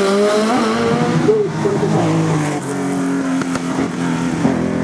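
Racing car engine running at high revs, its pitch holding and then stepping down at each gearchange, with a couple of brief sharp cracks.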